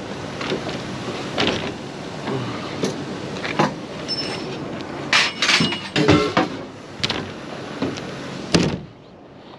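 A vehicle running with a string of knocks, clunks and rattles, like doors and loose metal being handled; a sharp thud comes near the end, after which the sound drops quieter.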